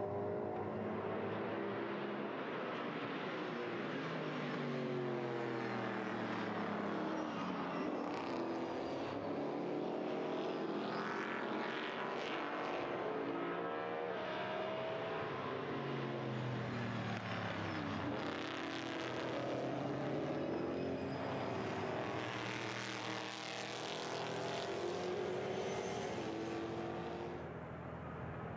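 V8 racing cars running close together, their engines revving up through the gears and dropping in pitch on downshifts into corners, several engine notes overlapping throughout.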